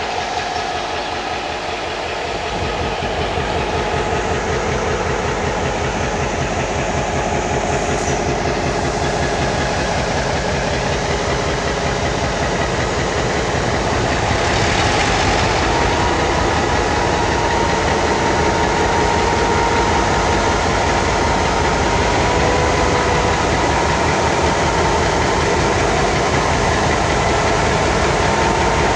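Diesel-electric freight locomotive engine being started up: its low, rhythmic running builds in about two seconds in and grows louder near the middle with a short hiss, then runs on steadily with a faint whine over it.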